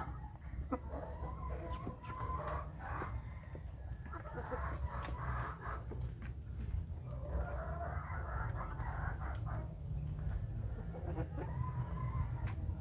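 A flock of young chickens clucking and calling, in several stretches of a second or two each, with scattered sharp ticks and a steady low rumble underneath.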